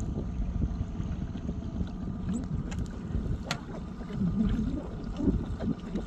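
Wind buffeting the microphone in a steady low rumble, with one sharp click about three and a half seconds in.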